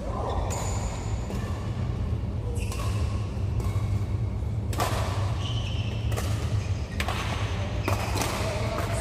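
Badminton rally: rackets smacking the shuttlecock back and forth about once a second, each hit echoing in a large hall, over a steady low hum.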